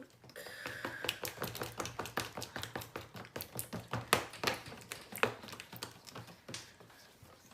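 A stirring utensil knocking and scraping against the sides of a container, in quick irregular taps several times a second, while food coloring is mixed into glue for slime.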